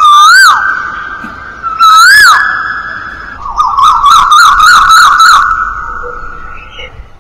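A TikTok clip's soundtrack: a loud, high siren-like wail that swoops up and down twice, then warbles rapidly about four times a second before cutting off.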